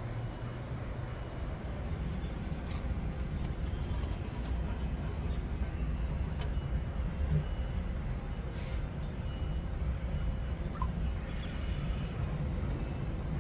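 Steady low rumble of distant city traffic, with a few faint clicks.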